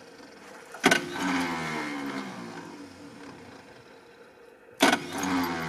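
Willys Jeep's starter engaged twice: each time a sharp clunk, about a second in and again near the end, then a whirring whine that falls in pitch and fades.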